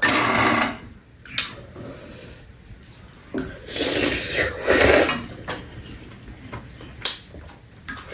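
Metal spoons clinking and scraping against bowls during a meal, with a few sharp clicks. About halfway through, two people sip and slurp soup from their spoons.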